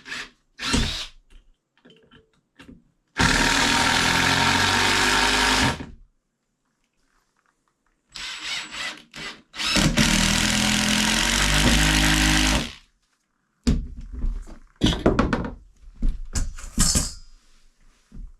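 A power tool runs twice, for about three seconds each time, with a steady motor hum, amid short knocks and clatter of wood being handled during door framing.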